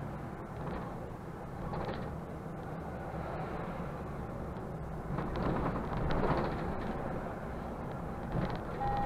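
Mercedes-Benz Conecto city bus driving along, heard from the driver's cab: steady engine drone and road rumble, with louder rattling of the body in the middle. Near the end a steady electronic beep starts.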